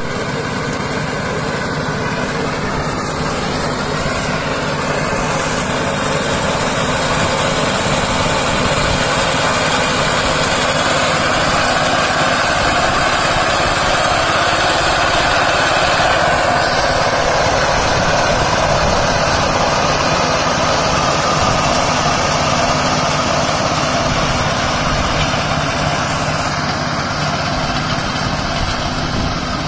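BCS self-propelled walk-behind reaper's small engine running steadily under load as the machine cuts standing wheat.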